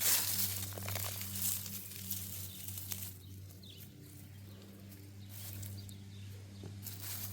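Digging through garden soil to unearth potatoes: irregular scraping and crumbling of dirt, loudest right at the start, with further strokes scattered through, over a steady low hum.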